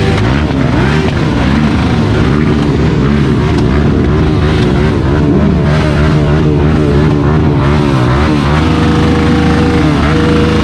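Engines of a sport quad ATV and motorcycles running and being revved, several engines overlapping with pitch rising and falling as they are blipped.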